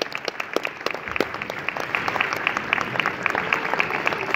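Audience applauding: many hands clapping at once, the clapping thickening about two seconds in.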